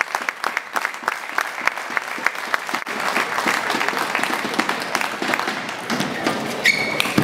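Applause from a small crowd: many scattered, irregular hand claps.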